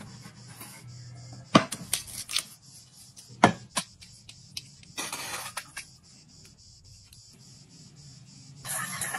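Kitchen preparation against soft background music: a few sharp knocks of utensils and ingredients on a wooden board and a stainless steel bowl in the first few seconds, a brief hiss about halfway through as sauce goes into the bowl, and a spice shaker rattled over the bowl near the end.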